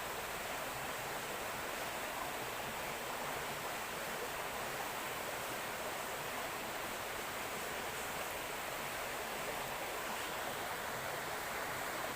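Steady rush of a shallow river flowing over stones, unchanging throughout.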